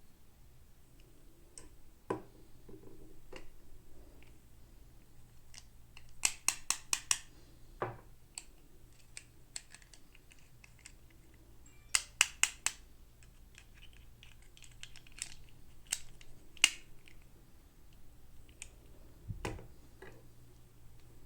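Hands handling small plastic toys and packaging: scattered light clicks and taps, with quick runs of clicks about six seconds in and again about twelve seconds in, and a duller knock near the end.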